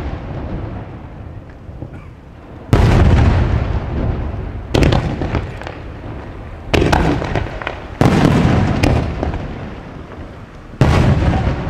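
Aerial firework shells bursting: five loud booms about two seconds apart, each starting suddenly and dying away in a long echoing rumble, some followed by brief crackling.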